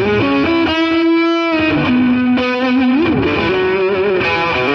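Intro music led by a distorted electric guitar, playing held notes with a few bending pitches.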